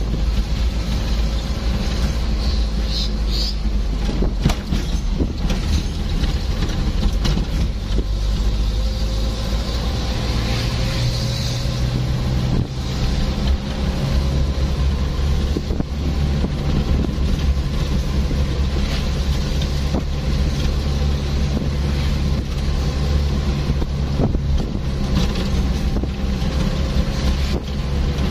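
Vehicle engine running steadily with a loud low rumble. Its note shifts a little about ten seconds in, with scattered knocks and rattles over it.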